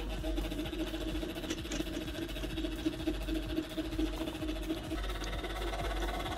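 Small electric motor whirring steadily as it drives a 3D-printed plastic universal joint. The whir gets brighter about five seconds in.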